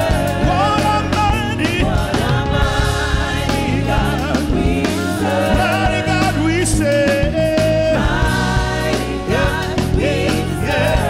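Live gospel worship music: voices singing a wavering melody over a band with a steady bass line and regular percussion hits.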